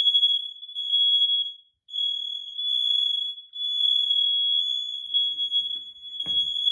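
Hardwired, interconnected smoke alarms sounding together during a test, so that one alarm sets off all the others. The result is a loud, high, steady tone with brief gaps. A short knock comes about six seconds in.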